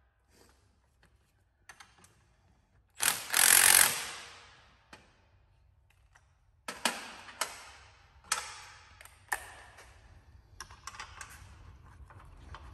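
Cordless drill running in two short bursts about three seconds in, tightening the spring compressor on a coil-spring strut. From about seven seconds on, a run of sharp metallic clicks and knocks as the strut, spring and spacer are handled.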